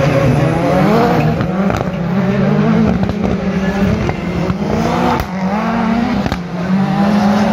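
Rallycross Supercars accelerating out of a corner and away down the straight. The engines rev up and drop back with each gear change, with several sharp pops and crackles.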